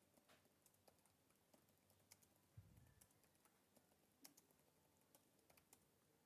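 Faint computer keyboard typing: scattered, irregular key clicks, with one soft low thump about two and a half seconds in.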